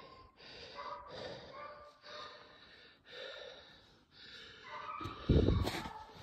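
A person breathing hard close to the microphone, about one breath a second, then a loud low thump about five seconds in.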